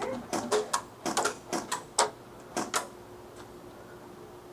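Scattered airsoft fire: about a dozen sharp, irregular clicks and snaps in the first three seconds, then a lull.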